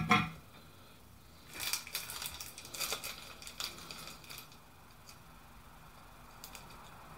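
Small clear plastic bag crinkling and rustling as it is handled and opened, from about a second and a half in for about three seconds.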